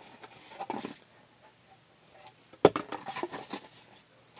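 Small beauty-sample packets and packaging being handled in a cardboard box: a sharp knock about two and a half seconds in, followed by a second of small clicks and rustling.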